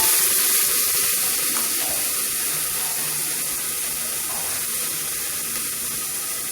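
Chopped tomato sizzling in hot oil with browning onion and garlic in a pan: a loud, steady frying hiss that slowly eases off.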